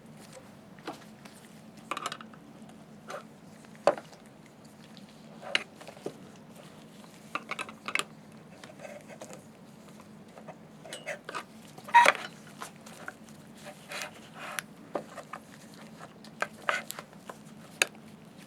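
Irregular metallic clicks and knocks as a cable is worked through the metal tubes of a slit lamp chinrest, the loudest knock about twelve seconds in, over a faint steady hum.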